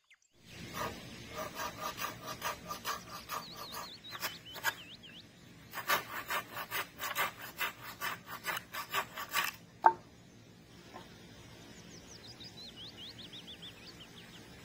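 Hand saw cutting through wood in two runs of steady back-and-forth strokes, about three a second, with a short pause between them, followed by a single sharp knock. A bird chirps briefly during the first run and again near the end.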